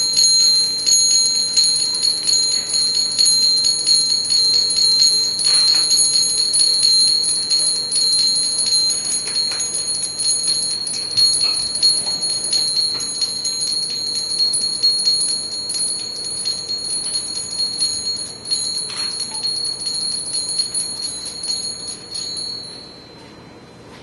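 Improvised experimental sound: a few high, steady ringing tones held together over a dense patter of small ticks, fading out shortly before the end.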